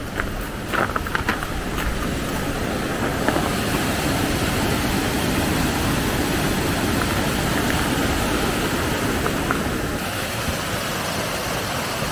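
Mountain stream rushing steadily, with a few light clicks in the first couple of seconds.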